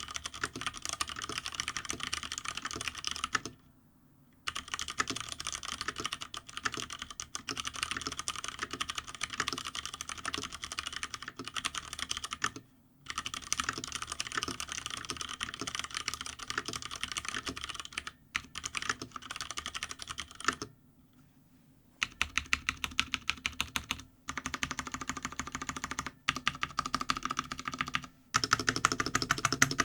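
Typing on a GTune (Hansung) GK993B SKY mechanical keyboard with stock, unlubricated Cherry MX Brown switches, set straight on the desk without a deskpad: fast runs of keystroke clacks broken by short pauses. The strokes get louder and more evenly spaced in the last third.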